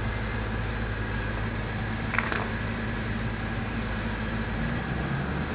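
Steady low mechanical hum, with a brief high-pitched sound about two seconds in.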